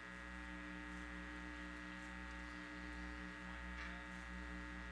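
Faint, steady electrical hum and buzz, with a low buzzing tone pulsing about six times a second.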